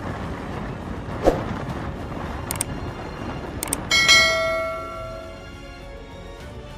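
Steady rushing noise with a few sharp clicks, then about four seconds in a loud strike that rings out like a bell and fades over a second and a half.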